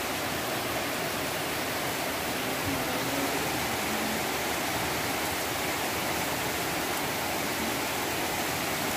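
Heavy monsoon rain pouring down steadily on trees and foliage, a dense, even hiss with no letup.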